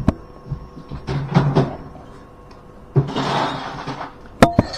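Hard object set down on a table: two sharp knocks near the end with a short ring, like a drinking glass, among lighter clatter and low murmuring.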